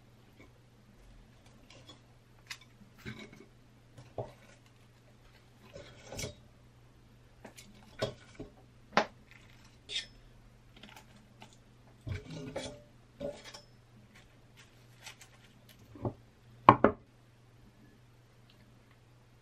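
Scattered clinks, taps and scrapes of kitchen utensils on cookware and a ceramic dish as food is plated: a spatula sliding a fried egg off a wok, chopsticks lifting fried shrimp out of an air fryer basket. Near the end come two louder knocks close together, over a steady low hum.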